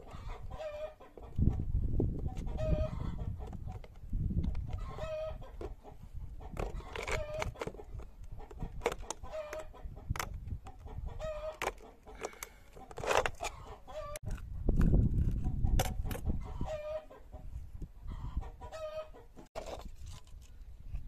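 Chickens clucking, short repeated calls every second or two, with scattered clicks and scrapes of a knife point being worked into a plastic bottle cap.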